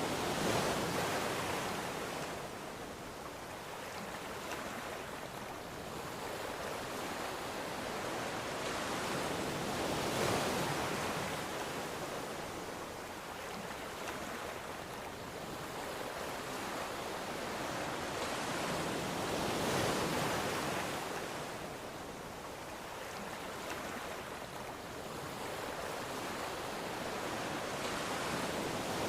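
Ocean surf: waves breaking and washing in, the noise swelling and fading about every ten seconds, with a surge near the start, about ten seconds in, about twenty seconds in, and again near the end.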